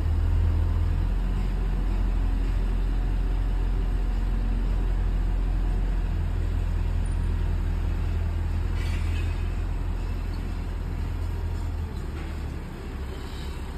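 Large cargo truck's engine running with a steady low rumble as it climbs slowly. It fades about twelve seconds in. A short hiss comes about nine seconds in.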